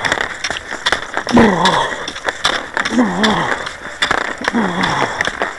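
Cross-country skis sliding and scraping over groomed snow, with sharp clicks of ski poles striking the snow. Three short falling tones come about a second and a half apart, in rhythm with the strides.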